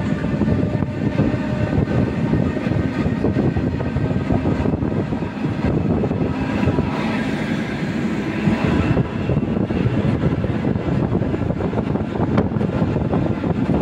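ER2K electric multiple unit running, heard at the side window: steady rumble of wheels on the rails, with a faint steady whine over it.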